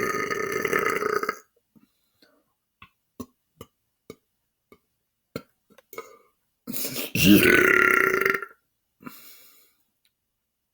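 A man belching on purpose: a long, loud belch that ends about a second and a half in, a few faint clicks, then a second long belch that starts near the seven-second mark and lasts about two seconds.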